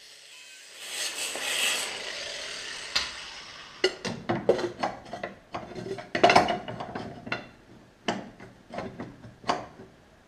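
Angle grinder cutting the steel of a car's engine bay, a hissing grind that fades out over the first few seconds. Then a run of irregular sharp metal clanks and knocks as the cut metal pieces are handled and tapped.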